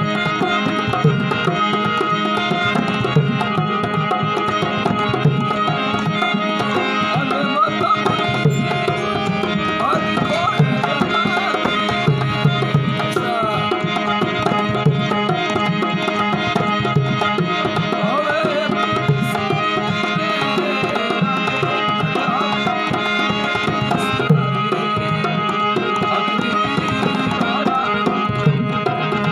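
Rajasthani folk music: a harmonium holds a steady drone and melody over a regular hand-drum rhythm.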